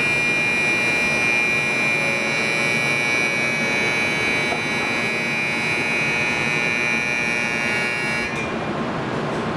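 Steady electronic buzzer ringing at a Shinkansen platform at departure, one unbroken high tone that cuts off suddenly about eight seconds in.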